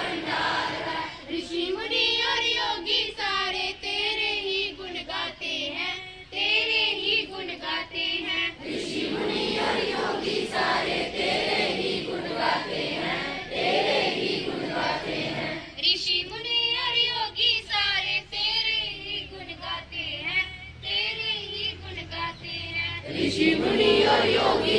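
A large group of school students singing a prayer together in unison, boys' and girls' voices mixed.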